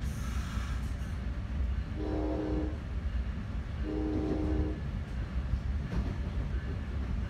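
Nathan K5LA air horn on the leading Bombardier multilevel cab car sounding two short blasts about two seconds apart, heard from inside the train. Under it runs the steady low rumble of the train rolling along the track.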